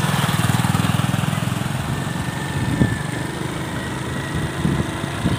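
Small motor scooter engine running steadily while riding along a road, with a rapid low pulsing; a brief louder blip about three seconds in.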